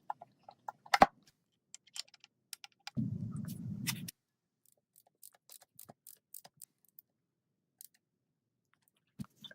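Scattered light clicks and clinks of hand tools and metal engine parts being handled, with a sharp knock about a second in and a low buzz lasting about a second, starting about three seconds in.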